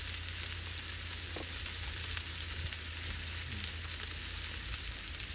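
Meat sizzling on a tabletop yakiniku grill pan: a steady, even hiss with a few faint ticks.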